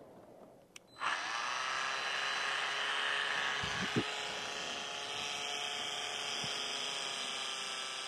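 Handheld electric polisher starting up about a second in and then running steadily as its pad buffs polishing compound on a stainless steel radiator panel. The motor's pitch dips slightly right after starting, and there is a brief knock about four seconds in.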